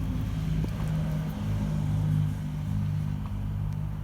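Low, steady engine drone, like a motor vehicle running somewhere near. Its pitch rises slightly around the middle.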